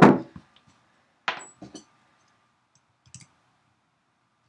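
Wire cutters snipping through a sculpture's wire armature loop: a sharp snap at the start and another about a second in, followed by a few light clicks of the wire and tool being handled.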